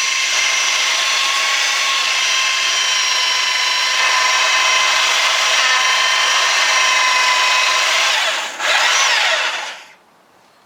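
Electric power tool running at a steady high whine, dipping briefly, then running up again and winding down to a stop near the end.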